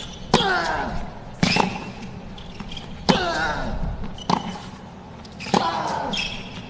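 A baseline tennis rally on a hard court: five sharp racket strikes on the ball, about 1.2 to 1.7 seconds apart. Each is followed at once by the hitter's short grunt falling in pitch.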